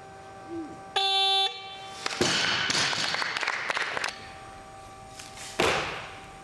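A buzzer-like signal tone sounds for about half a second, typical of a weightlifting down signal. Then a barbell loaded with bumper plates drops onto the wooden platform with a thud, followed by about two seconds of rattling noise. Another sharp thud comes near the end.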